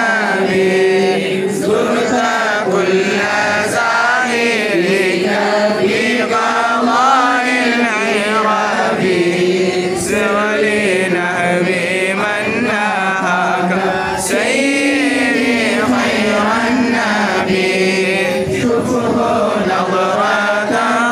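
A group of men and boys chanting a devotional bait together in unison, a continuous melodic group chant led from a booklet.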